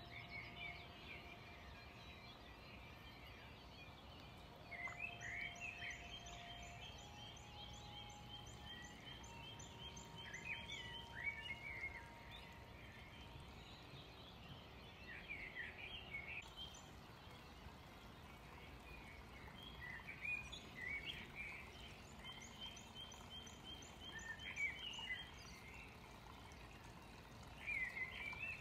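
Faint outdoor background noise with small birds chirping and trilling in several bursts of high-pitched, quick notes.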